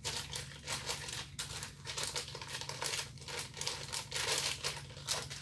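MRE packaging crinkling and rustling in irregular crackles as the food pouch is handled and worked into its heater bag and cardboard sleeve.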